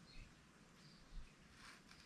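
Near silence: faint outdoor ambience with a few short, faint bird chirps and a brief soft hiss near the end.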